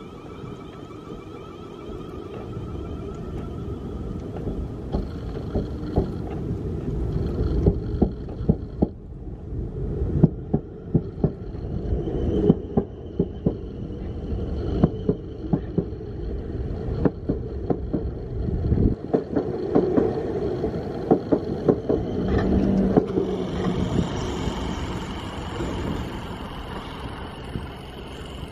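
Electric multiple-unit train running past at close range: a steady running rumble builds and then eases as it pulls away. Many sharp clicks of the wheels over rail joints and pointwork run through the rumble, with a thin electric traction whine above it.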